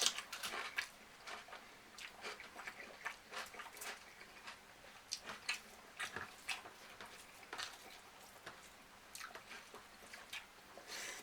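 A person eating close to the microphone: irregular wet chewing smacks and mouth clicks, several a second.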